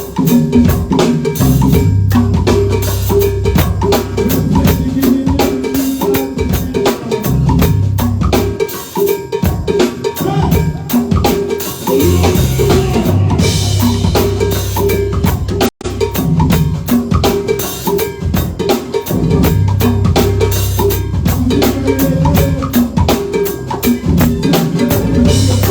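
Live band music with a steady drum-kit beat of kick, snare and rimshots over a bass line. The sound drops out for an instant about two-thirds of the way through.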